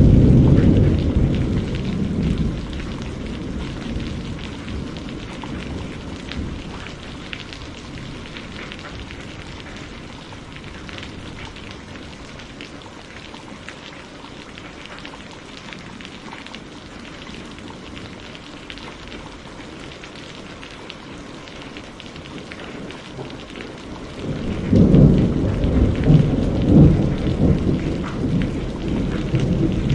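Steady rain falling, with rolling thunder: a low rumble at the start dies away over the first few seconds, and a louder rumble of thunder comes in near the end.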